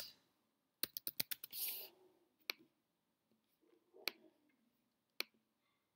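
Typing on a computer keyboard: a quick run of keystrokes about a second in, then three single clicks spaced a second or more apart.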